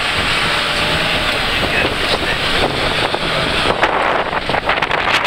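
Off-road vehicle driving over a sandy, rutted desert track: a steady mix of engine and tyre noise with heavy wind buffeting on the microphone. A run of knocks and rattles comes in near the end.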